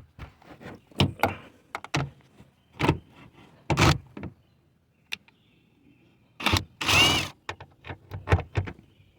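Irregular clicks and knocks of a wrench and hands working on the taillight's 8 mm mounting nuts inside a car trunk, with a louder scraping rasp and a short rising squeak about seven seconds in.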